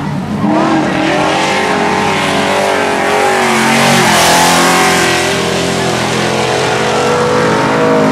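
Engines of several winged dirt-track sedan race cars running at racing speed, their pitch rising and falling as they accelerate and back off through the corners. The loudest moment is a car passing close about four seconds in.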